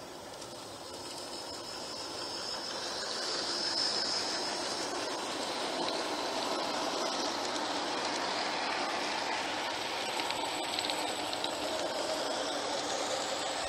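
G-scale model train running along a garden railway track, its running noise growing louder over the first few seconds as it approaches, then holding steady as it passes close by.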